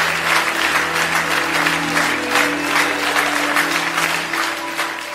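Crowd clapping and cheering over a live rock band holding a steady keyboard chord; the applause thins toward the end.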